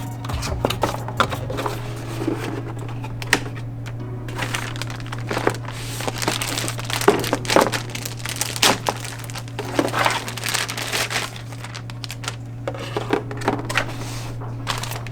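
Packaging being handled during an unboxing: plastic and cardboard crinkling and rustling in irregular bursts, with small clicks and knocks, over a steady low hum.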